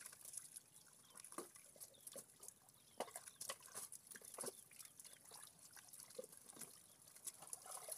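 Faint wet squelching and small splashes of hands working through soft mud and shallow water, a scatter of short splats and clicks.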